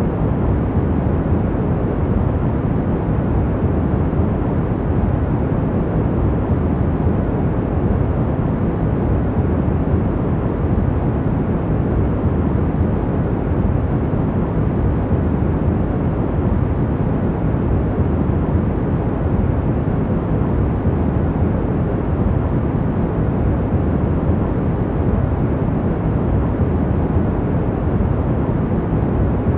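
Steady, deep noise of a sleep-sound track, even and unchanging, with its weight in the low end and little hiss on top.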